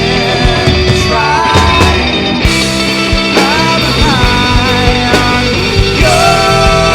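A rock band playing a song live: drums, bass and guitar under a singing voice, at a steady loud level.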